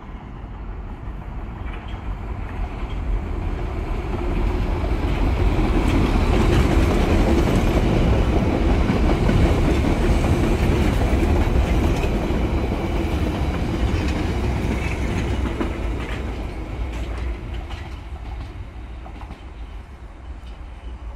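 London Underground Piccadilly line 1973 Stock train running through the station without stopping, its wheels clattering over the rail joints. The sound builds to a peak about halfway through, then fades as the train pulls away.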